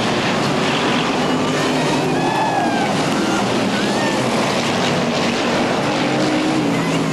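Several stock car engines running hard at once as the cars race round the track, a steady loud mix of engine noise with some pitches rising and falling as cars pass.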